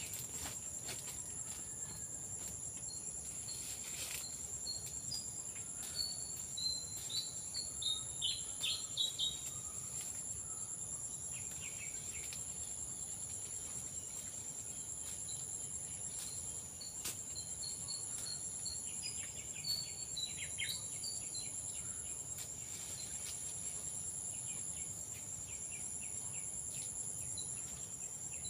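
A steady, shrill insect chorus of crickets or cicadas drones throughout. Twice, a bird breaks in with runs of quick chirps, about a quarter of the way in and again about two-thirds in.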